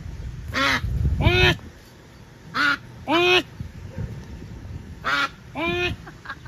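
Goose honking: three pairs of loud, arched, nasal calls, with the pairs a couple of seconds apart.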